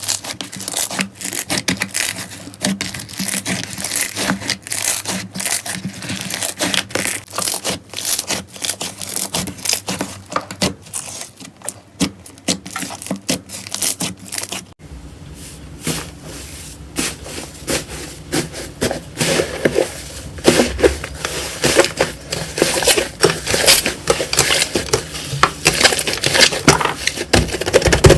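Slime being squeezed and pressed by hand, giving dense, irregular crackling and clicking. About halfway through, a steady low rumble joins beneath the crackling.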